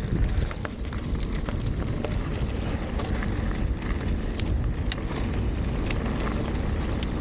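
Mountain bike rolling fast down a dirt and gravel trail: wind buffeting the action camera's microphone over the tyres running on loose ground, with frequent sharp clicks and rattles from stones and the bike.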